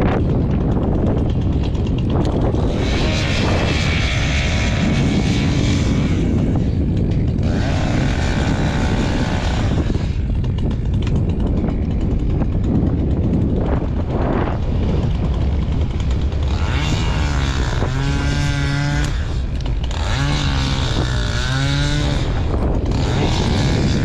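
Wind buffeting the microphone, a steady low rumble. A wavering pitched sound comes and goes twice past the middle.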